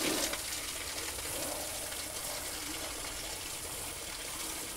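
Water hose spraying onto dirt in an archaeological sifting screen, a steady gushing spray, a little louder right at the start, washing the soil through the mesh.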